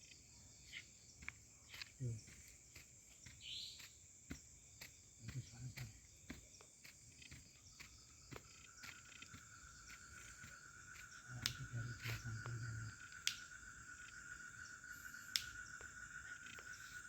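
Forest ambience of insects: a steady high-pitched insect drone, joined about eight seconds in by a second insect's steady, lower trill, with scattered faint clicks and ticks.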